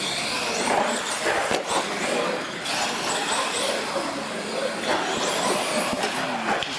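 Radio-controlled monster trucks racing on a concrete floor: electric motors whining, rising and falling in pitch, over the noise of the tyres, with a few sharp knocks and people talking in the background.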